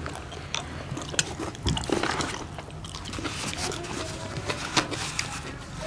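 Close-up eating sounds of two people: chewing and lip smacks while slurping in leafy greens, with many short sharp clicks scattered through.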